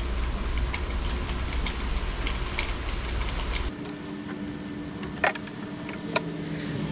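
Steady mechanical hum that changes character abruptly partway through, with two light clicks near the end.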